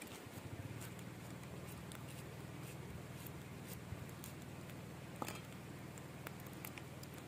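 Water boiling in a pot over an open wood fire: a steady low rumble, with scattered small clicks and crackles from the fire and the knife cutting food.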